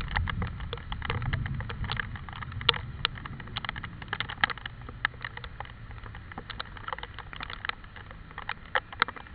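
Rain: large drops striking a hard surface close by as irregular sharp ticks. A low wind rumble on the microphone fades over the first two seconds or so.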